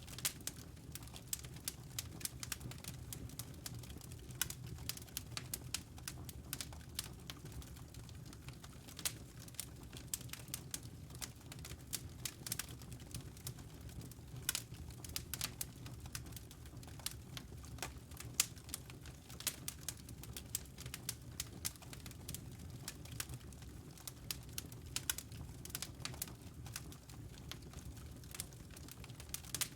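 Wood fire crackling in a fireplace: irregular sharp pops and snaps of burning logs, several a second, over a low steady background.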